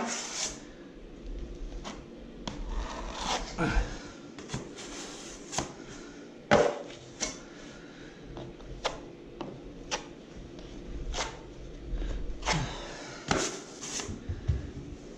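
Wide filling blade spreading Easifill filler over scrim tape on a plaster ceiling: irregular scrapes and light taps of the blade against the ceiling, with a few longer scraping strokes and one sharper knock about six and a half seconds in.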